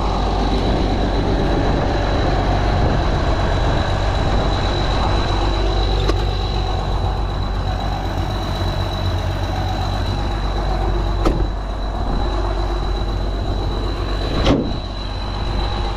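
Heavy farm diesel engine, from a truck or combine, running steadily at idle, with a constant high-pitched whine over it. Two short sharp knocks come in the second half.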